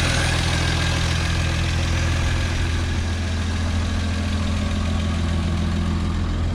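1951 Studebaker Champion's flathead straight-six idling steadily through a newly fitted makeshift exhaust with a Toyota Corolla muffler, running fairly quietly, almost like a normal car.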